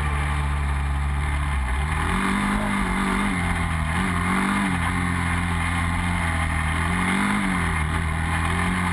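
Quad bike (ATV) engine running steadily, with its pitch swelling up and back down as the throttle is blipped, about three times.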